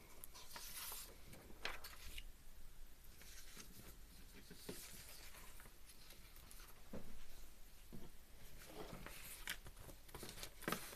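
Faint rustling and sliding of paper sheets, with a few soft taps and rubs scattered through, as printed chart pages are handled and swapped on a table.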